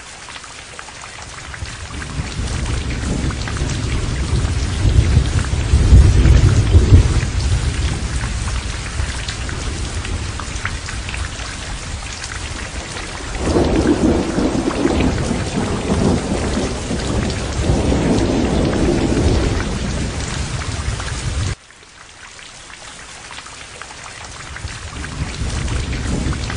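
Thunderstorm: steady heavy rain with rolling thunder, two long rumbles, the first about five seconds in and the second from about thirteen to twenty seconds. The sound cuts off abruptly about 21 seconds in, then swells again.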